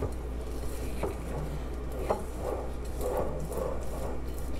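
Spatula stirring a runny batter of melted butter, sugar and egg in a glass bowl, with soft swishing and a couple of light taps against the glass about one and two seconds in.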